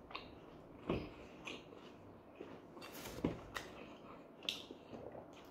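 Close-up eating sounds: a man chewing and tearing bites of lepinja flatbread with a pljeskavica patty, with a few sharp mouth smacks and clicks, the loudest about a second in and just after three seconds.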